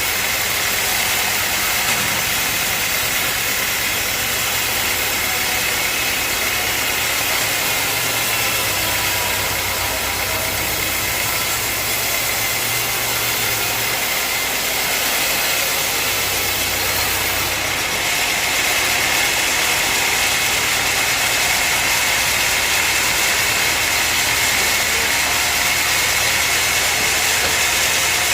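Sawmill machinery running steadily: a mechanical drone under a broad hiss, getting a little louder about two-thirds of the way through.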